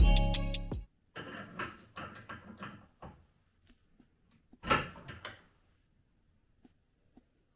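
Background music that cuts off within the first second, then soft clattering and handling noises from a dishwasher being repaired in its bay under a kitchen counter, with one louder knock about five seconds in.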